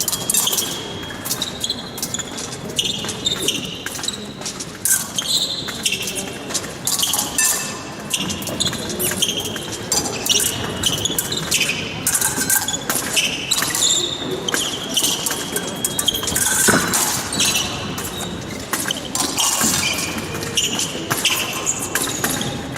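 Épée fencers' footwork on the piste: shoes squeaking in short high chirps and feet knocking and shuffling, with a sharp knock about seventeen seconds in.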